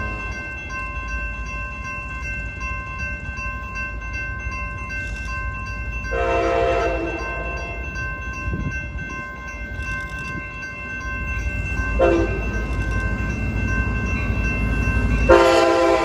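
A train's air horn sounding over the steady rumble of the train running: a long blast about six seconds in, a short blast around twelve seconds, and another long blast near the end. Each blast is a chord of several notes.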